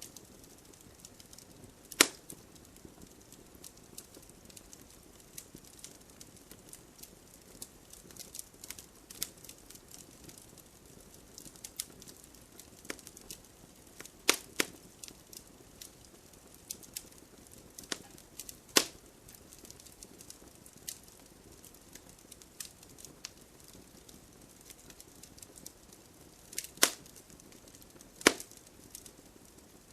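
Wood fire in a fireplace crackling, with a faint steady hiss under scattered small pops and about five sharp, louder snaps.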